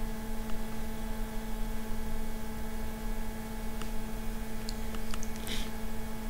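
Steady electrical hum with a faint hiss underneath, from the recording setup, with a few faint clicks in the second half.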